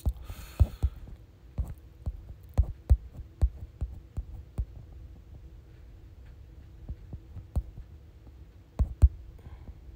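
Irregular light clicks and taps, about one or two a second, over a faint steady hum, with two louder taps close together about nine seconds in.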